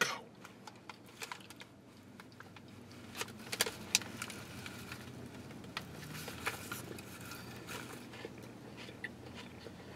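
Paper food wrapper crinkling in the hands in scattered short crackles while a flatbread sandwich is bitten and chewed, with faint chewing sounds.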